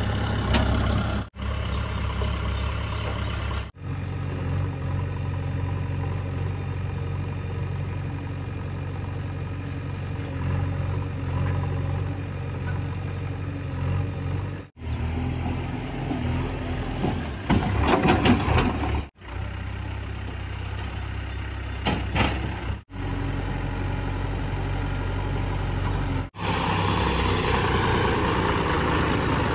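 Diesel engine of a JCB 3DX backhoe loader running steadily while it loads dung into tractor trailers. The sound drops out briefly several times, and there is a louder, rougher burst a little past the middle.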